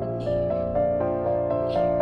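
Gentle piano music accompanying a ballet exercise, with held notes and chords changing every half second or so.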